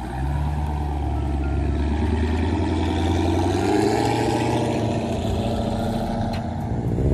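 Performance Jeep Grand Cherokee's V8 running as it drives off at low speed, its engine note rising about three seconds in as it pulls away and then easing.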